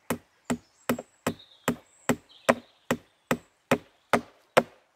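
A hand-held rock hammering a coin edge-first into the wood of a coin-studded log: a steady run of sharp knocks, about two and a half a second.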